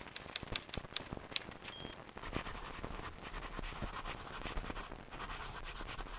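Pen scratching on paper, a writing sound effect in uneven strokes. A quick series of sharp ticks comes first, then from about two seconds in a continuous scratchy rustle.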